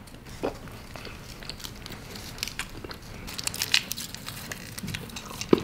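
Crinkling and light crackling of a small paper wrapper being peeled off a wrapped chocolate candy, in scattered little ticks that come thicker past the middle.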